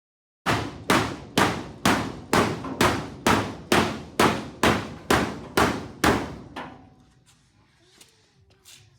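Hammer striking sheet metal in a steady run of about thirteen blows, a little over two a second, each ringing briefly. The blows stop about two-thirds of the way through, followed by a few faint taps.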